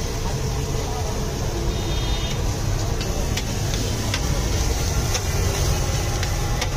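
Busy street background noise: a steady low rumble of traffic under an even hiss, with scattered light, sharp taps.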